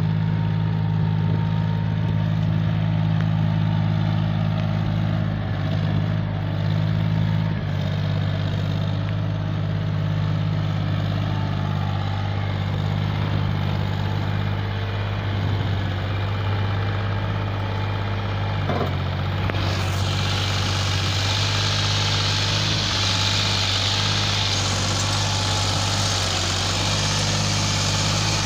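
John Deere 5036D tractor's three-cylinder diesel engine running steadily while pulling a loaded trolley. A hiss grows louder about two-thirds of the way in.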